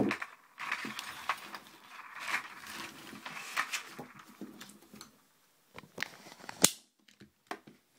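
Rustling and light scraping as a sheet of paper is slid under the lock's loose pins and springs on a table, with scattered small clicks and one sharper click near the end.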